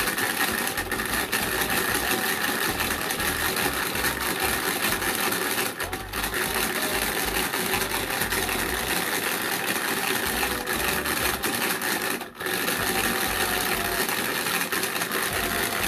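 Crayola Paint Maker's mixer shaking a paint bottle: a loud, steady plastic rattle that mixes water and color strips into paint. It briefly drops out twice, about six and twelve seconds in.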